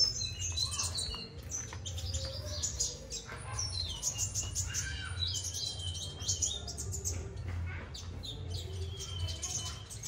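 Caged Kalimantan konin songbirds chirping and whistling, a run of short high calls one after another, over a steady low hum.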